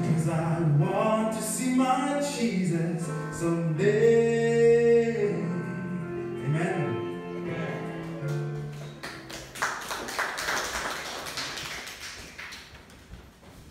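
Choir singing a gospel song with accompaniment, holding one long note partway through. The singing ends about two-thirds of the way in, and a soft grainy noise fades out after it.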